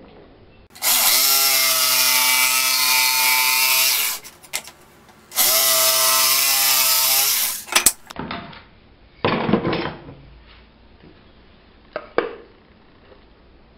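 Electric jigsaw cutting a wooden board in two runs of about three seconds and two and a half seconds, its motor whining at a steady pitch over the rasp of the blade. A few wooden knocks follow as the cut pieces are handled.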